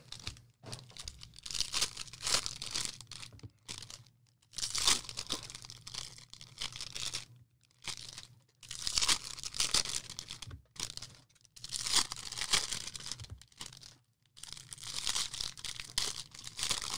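2020 Bowman Draft trading-card pack wrappers being torn open and crinkled, in repeated bursts of rustling with short silent gaps between them.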